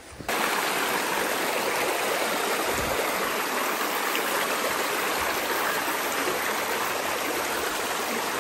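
Shallow rocky stream rushing and splashing over stones, close by: a steady, dense water noise that cuts in suddenly just after the start.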